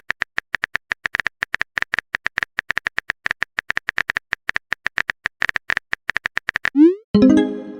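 Rapid, even tapping of a phone keyboard sound effect, about nine clicks a second, as a text message is typed out. Near the end comes a short rising swoosh, then a brief chime: a chat app's message-sent sound.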